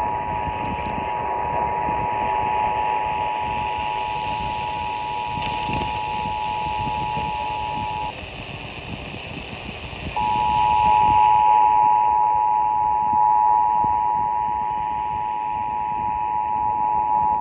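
Emergency Alert System two-tone attention signal (853 and 960 Hz together), a steady loud dual tone received off-air over radio hiss. It sounds for about eight seconds and stops, and about two seconds later a second attention signal starts and runs on. The signal announces an EAS message, here the Iowa Required Monthly Test.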